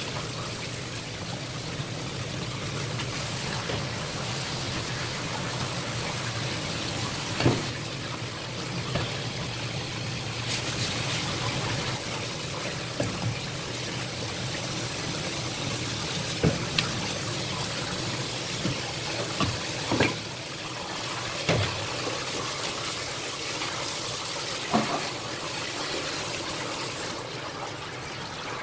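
Tap water running from a spray faucet and splashing onto a red sea bream, with about eight scattered sharp knocks from handling and cutting the fish. The water stops shortly before the end.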